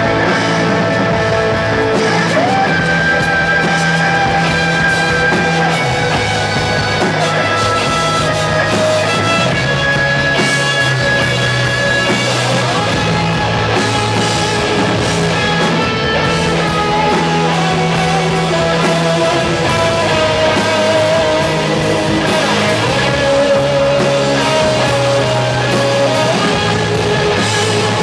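Rock band playing live, with electric guitars to the fore over a steady beat.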